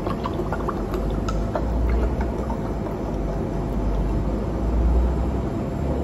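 A drink poured from a glass bottle into a glass tumbler, with a few light clinks in the first couple of seconds over a steady low rumble.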